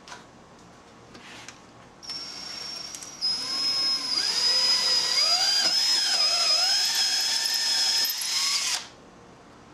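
DeWalt cordless drill boring a 3/16-inch pilot hole into a boat's fiberglass transom. A high whine starts about two seconds in and gets much louder a second later as the bit bites, its pitch wavering with trigger and load, then it cuts off abruptly near the end.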